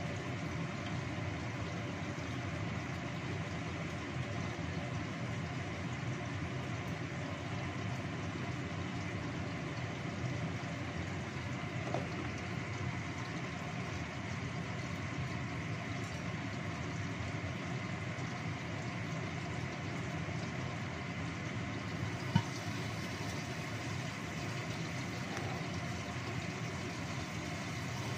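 Steady rushing noise of a gas stove burner under a pot of chicken boiling in turmeric-spiced broth, with one sharp click about twenty-two seconds in.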